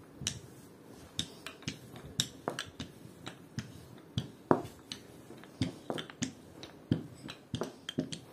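Irregular sharp taps and clicks of hands and utensils handling food at a kitchen work surface, about two a second, the loudest a little past the middle.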